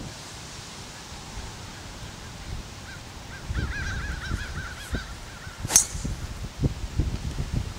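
A single sharp crack of a driver striking a teed golf ball, about three-quarters of the way through. Just before it, birds call faintly in a quick series of short, wavering notes.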